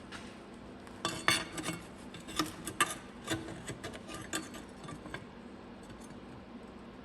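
Scattered light metallic clinks and clicks of tools being handled, irregular and mostly in the first few seconds.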